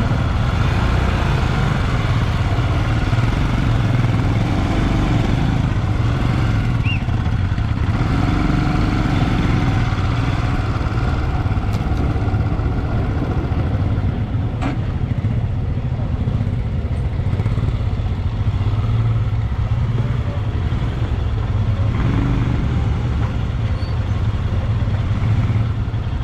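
Motorcycle engine running at a steady pace while riding, a constant low drone with road noise.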